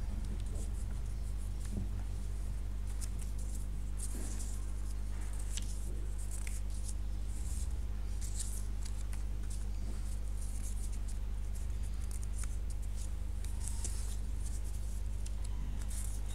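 Steady electrical hum with short scratching and rustling noises scattered irregularly over it.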